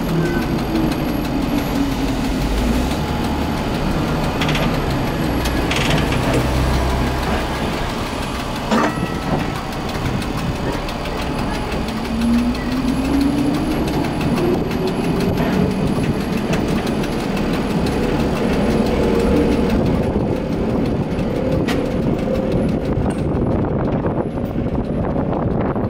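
1960 Bern standard streetcar running on street track, with steady wheel-and-rail rumble. A motor whine falls over the first couple of seconds as the tram slows, and then climbs steadily again from a little before halfway as it accelerates. A single sharp click comes about a third of the way in.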